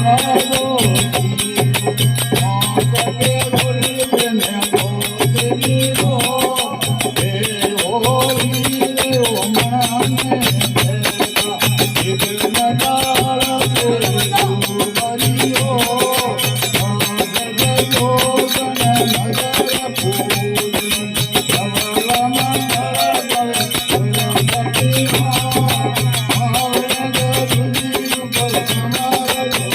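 Rajasthani devotional aarti song: a melodic line sung over a fast, steady jingling hand-percussion rhythm and a pulsing low beat.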